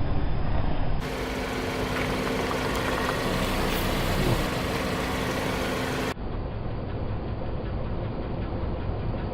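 A car engine running at low speed in three spliced takes, with abrupt changes of tone about a second in and again about six seconds in.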